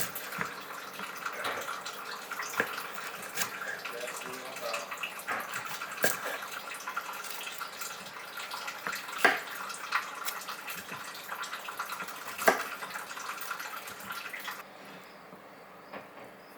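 Water running, as from a tap into a sink, with scattered clinks and knocks; the running stops near the end.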